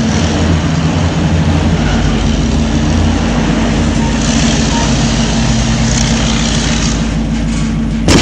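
Heavy diesel construction vehicle engine running steadily with a low drone, with a short sharp knock right at the end.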